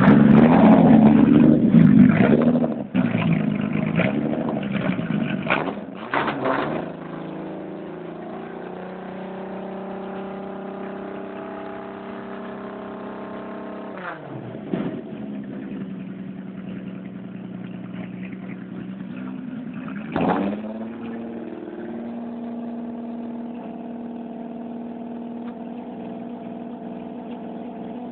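VW Golf Mk2's VR6 engine revved several times in quick succession, then settling to a steady idle. Two short throttle blips come partway through the idle, the second about two-thirds of the way in.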